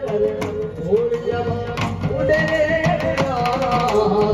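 Live Rajasthani folk music through loudspeakers: a dhol drum beating a steady rhythm under a wavering melody line.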